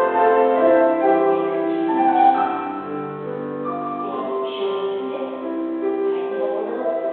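Slow ballet-class piano music with long held notes that change every second or so.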